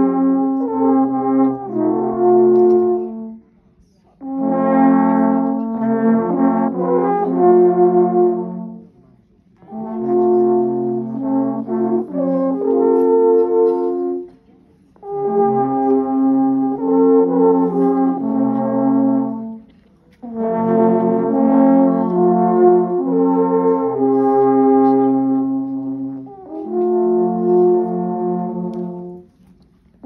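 A group of alphorns playing a slow tune together in long held notes. The tune comes in about six phrases of four to six seconds each, with a brief pause for breath between them.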